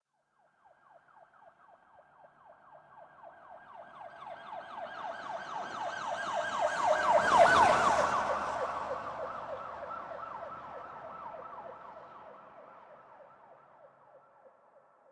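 Police car siren in a fast yelp, sweeping up and down several times a second as the car passes by: it grows louder to a peak about halfway through, then fades away.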